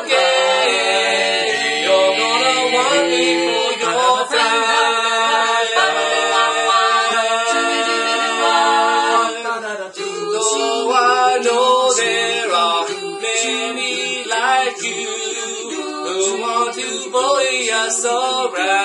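Mixed male and female a cappella quartet singing in harmony, one voice carrying the sung lyrics over the others' backing.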